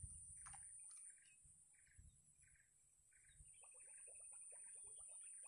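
Faint wetland ambience: a small bird chirping over and over, about once every two-thirds of a second, over a steady high thin whine. A rapid run of soft short clicks starts about halfway through.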